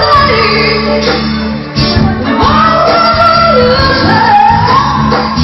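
Live band playing loud amplified music: electric bass and guitar with drums under a sung lead vocal holding long notes.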